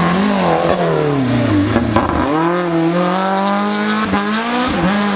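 Rally car engines under hard throttle. One engine's pitch falls away over the first two seconds as the car goes by. Then another car's engine holds a high, steady note, dipping briefly twice near the end.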